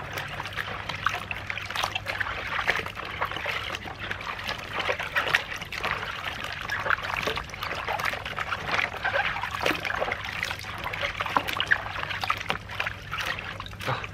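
Hands swishing and rubbing peeled bamboo shoots in a plastic basin of salted water: continuous sloshing and splashing with many small splashes and knocks of the shoots against each other.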